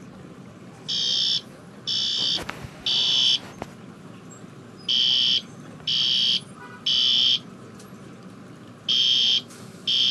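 Fire alarm sounding in the temporal-three evacuation pattern: three high beeps about a second apart, a pause, then another group of three, repeating.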